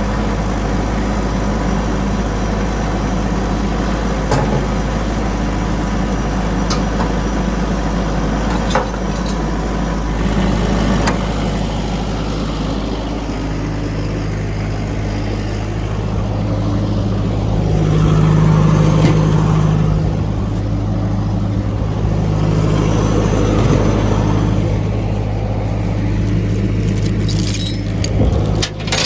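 A vehicle engine running steadily. Its tone rises and strengthens for a stretch partway through, as under load or revs, and it cuts off abruptly at the very end.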